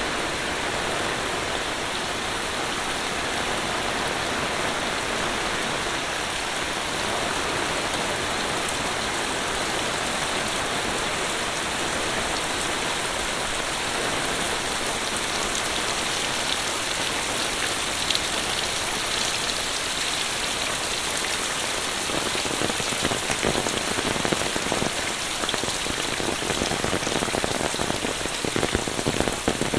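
Monsoon rain falling steadily, an even hiss of rain on surfaces with individual raindrops audible. From about two-thirds of the way in, close drops hit harder and more distinctly, and the sound turns louder and patchier.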